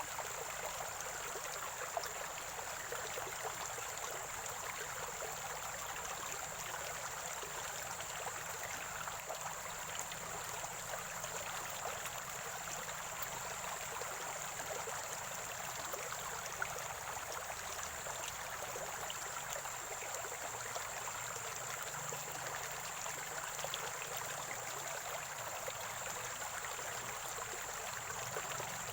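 Water from a small spring-fed stream gurgling and trickling steadily, with an even flow throughout. A steady high-pitched hiss runs beneath it.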